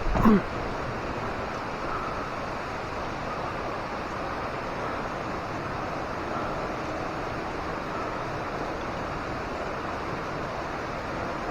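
Steady rush of falling water from a waterfall. A brief loud bump, like handling noise, comes right at the start.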